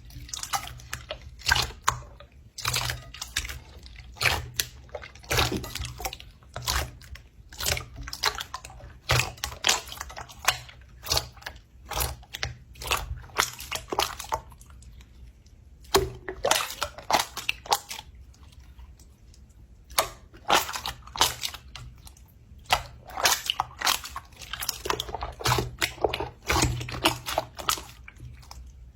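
Something soft and sticky being squished and pulled apart by hand: wet, sticky squishing full of short crackling pops and clicks in irregular runs, with a brief pause about halfway through and another a few seconds later.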